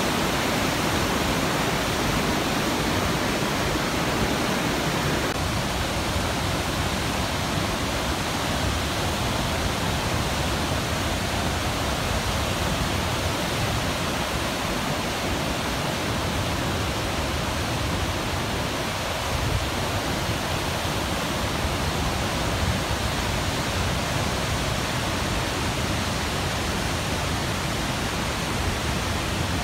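Fast mountain river rushing over boulders in white-water rapids: a steady, full rushing of water, its tone shifting slightly about five seconds in.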